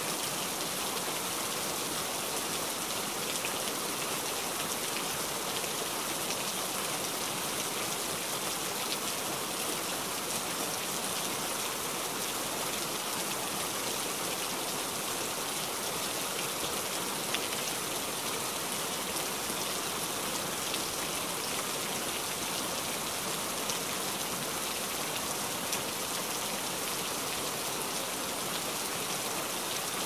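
Steady rain falling, an even hiss with scattered sharper drop hits.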